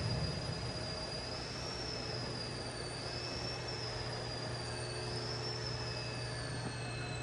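Kalamazoo KS600 horizontal bandsaw running: a steady low motor hum with a faint high whine that wavers slowly up and down.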